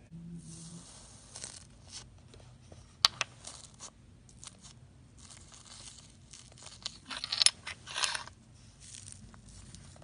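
Iceberg slime's dried crust crackling and crunching as it is pressed and broken up, in irregular bursts. A sharp snap comes about three seconds in, and the loudest crackling comes between about seven and eight seconds.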